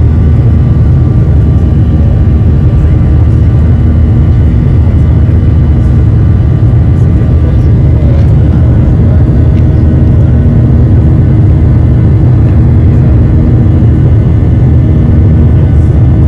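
Airliner jet engines at climb power heard inside the passenger cabin: a loud, steady rumble with faint steady hum tones above it.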